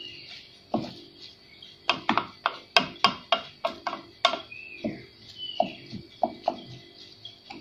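Wooden spatula stirring diced onion and peppers in a frying pan, knocking and scraping against the pan in quick, irregular clicks.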